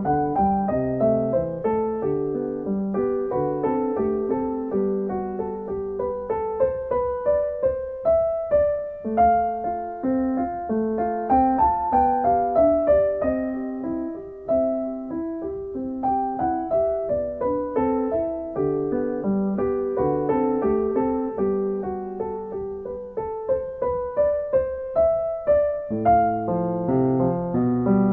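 Background music: a solo piano (electric piano tone) playing a gentle, steady melody of evenly struck notes.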